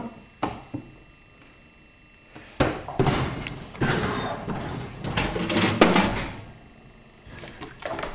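A few sharp knocks near the start, then from about two and a half seconds in a stretch of loud, noisy knocking and thudding that rises and falls before dying away near the end.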